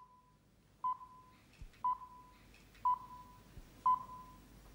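BBC Greenwich Time Signal, "the pips": short, high, single-pitch beeps, one each second, counting down to the hour.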